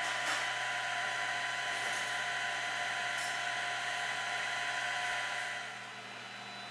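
Printrbot Play 3D printer running: a steady high whine from its fan-cooled print head and motors, with a few faint ticks. About five and a half seconds in it drops to a quieter hum.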